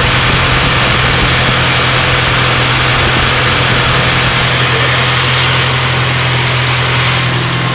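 Car engine idling with a steady low drone, with the manual transmission making an odd noise that comes on while the clutch is let out.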